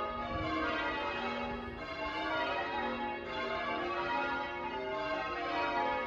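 Church bells rung in changes: a peal of several bells sounding one after another in shifting order, overlapping into a continuous ring.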